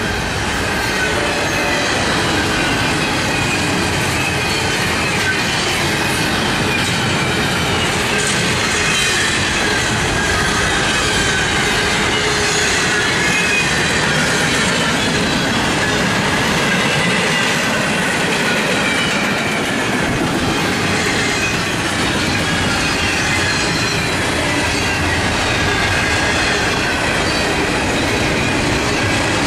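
Double-stack container freight train rolling past: a steady rumble and clatter of well-car wheels on the rails, with a thin wheel squeal wavering up and down over it.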